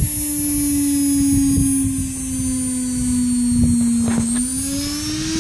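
Washing machine motor wired straight to the mains, spinning unloaded at full speed with no speed controller: a steady hum with a thin high whine above it. Its pitch sags slightly about four seconds in, then rises again.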